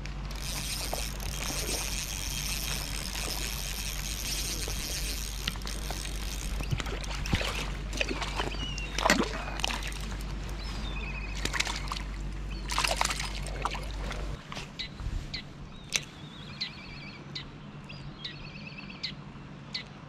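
Water splashing and sloshing in irregular spurts, over a steady low hum that cuts off suddenly about fourteen seconds in. After the hum stops, a few scattered clicks follow.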